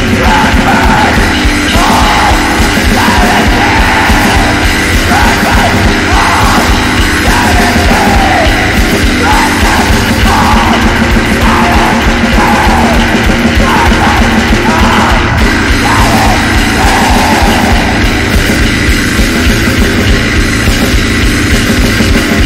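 Black metal music: distorted guitars over dense, fast drumming, with harsh vocals that stop about three-quarters of the way through.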